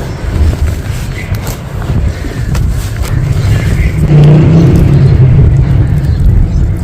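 Close-miked crumbling of sand, a dense low crackle of many small grains that grows louder about four seconds in.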